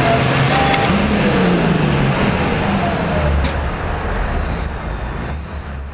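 Super farm pulling tractor's turbocharged diesel engine, heard close from the on-board camera, revving up briefly and then dropping back, with a high whine gliding down in pitch. A single sharp click comes midway, and the engine sound grows quieter toward the end.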